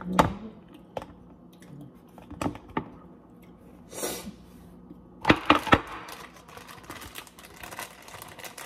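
Sharp clicks and knocks of a glass food-storage container with a snap-lock plastic lid being latched and handled on a stone countertop, with a quick cluster of loud clicks about five seconds in. Near the end a plastic zipper bag crinkles.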